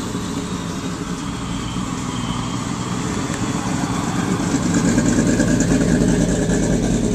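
1948 Ford F-1's 226 cubic-inch flathead inline six idling steadily, a low rumble that gets slightly louder about halfway through.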